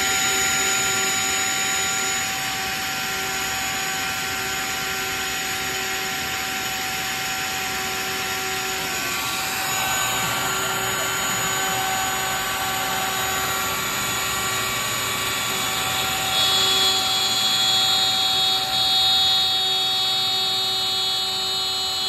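A Bosch 1617EVS router on a CNC Shark running at full speed with a steady high whine, together with the even rushing of a shop vacuum on the dust boot. About three-quarters of the way in, higher-pitched whining tones join in.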